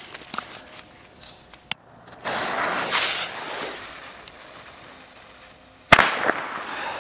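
Small firecrackers (Pyro Cracker / China Cracker) going off: a faint crack about two seconds in, then one sharp, loud bang near the end. A couple of seconds of rushing noise follow the first crack.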